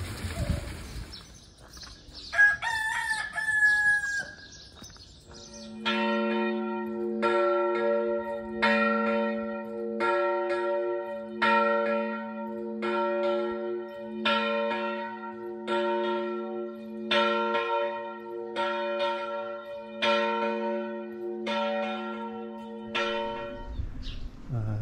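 A rooster crows once about two seconds in. Then a single church bell tolls more than a dozen times on the same note, a strike a little over every second, each ringing on into the next.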